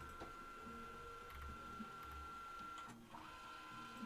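Faint steady high-pitched whine that breaks off briefly about three seconds in and comes back with a second, lower tone beside it, over a low hum.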